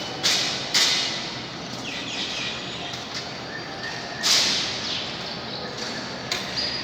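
Four sharp knocks: two in the first second, one about four seconds in and one near the end, over a steady background hiss.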